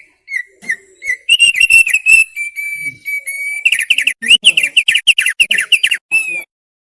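Thick-billed heleia (opior paruh tebal) singing: a run of clear whistled notes, including one held steady note, then a fast series of down-slurred whistles about five a second near the end.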